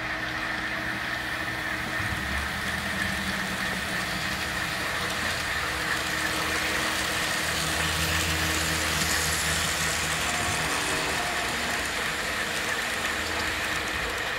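HO scale model trains running on a layout, with a steady engine-like drone and a constant high whine; the low engine note shifts pitch a few times.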